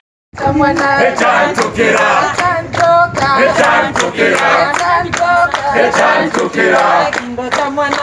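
A group of people singing a traditional song together in chorus, with steady hand clapping; it begins after a brief silent gap.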